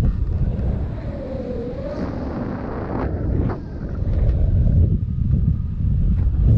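Wind buffeting the microphone in a heavy, gusting low rumble, with a couple of brief knocks about three seconds in.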